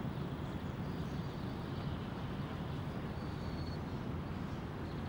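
Steady background noise of outdoor ambience, a low even rumble and hiss with no distinct events.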